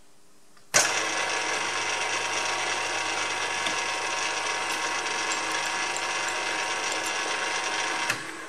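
Milling machine spindle and gearbox running at their slowest speed, driving a tapered tap into a 6 mm hole in steel. The steady mechanical whirr, with fixed gear tones, starts about a second in and stops shortly before the end.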